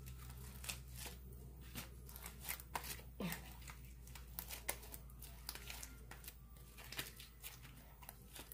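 Homemade clear-glue slime being kneaded by hand: irregular, soft sticky clicks and squelches, several a second, as the still slightly sticky slime pulls off the fingers.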